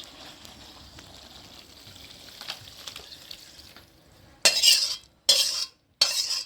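A metal spoon scraping through the posto curry in a kadai: faint for the first few seconds, then three loud scraping strokes of about half a second each, beginning about four seconds in.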